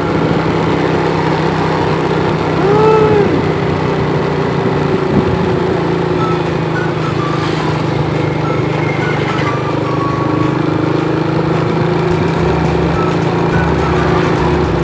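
Vehicle engines running with a steady drone, and a brief tone that rises and falls about three seconds in.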